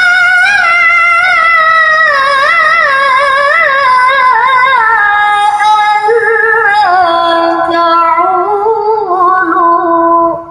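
A girl's voice reciting the Quran in melodic qiro'ah style: one long ornamented phrase of held, wavering notes that slowly step down in pitch, ending just before the end.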